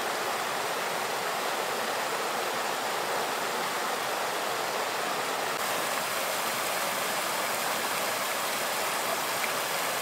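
Waterfall's falling water: a steady, even rush of water noise.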